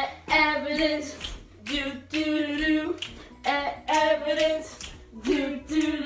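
A girl's voice singing a tune in short phrases of about a second each, with brief breaks between them.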